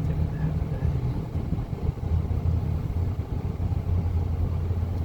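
A truck driving, its engine and road noise heard from inside the cab as a steady low rumble.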